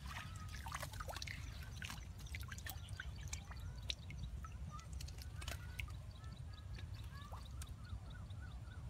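Water dripping and trickling, with many scattered small drops and clicks, as a fish trap is handled at the water.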